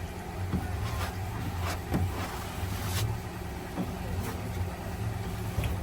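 A steady low mechanical hum from a running motor, with scattered light knocks and clicks over it.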